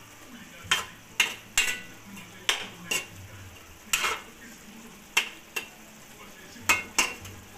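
A spatula knocking and scraping against a wok while chicken and potato pieces are stirred in their sauce: about ten irregular clanks over a faint steady sizzle.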